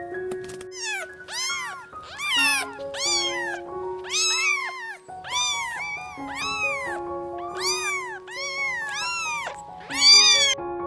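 A cat meowing over and over: about a dozen short, arched, high calls in quick succession, one louder call near the end. Background music with steady held notes plays underneath.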